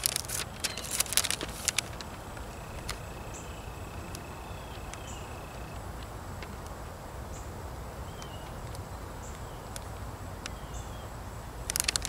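Pages of a Bible being flipped and paper rustling in the first two seconds and again near the end. In between, faint outdoor ambience with a low steady rumble, short high chirps repeating every second or so, and a thin steady high whine for a few seconds.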